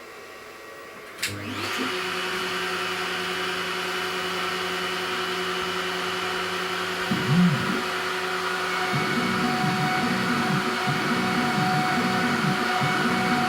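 CNC router spindle starting up about a second in and running with a steady whine. About seven seconds in the bit bites into the wood, and from then on the cutting sound wavers in a regular pulse as the machine follows its toolpath.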